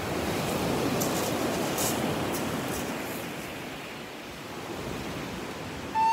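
Waves washing onto a pebble beach, louder in the first couple of seconds and then easing off. Right at the end a soprano recorder begins a held note.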